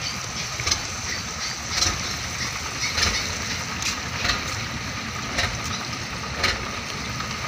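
An engine idling in a steady, noisy rumble, with a sharp knock or clatter about once a second.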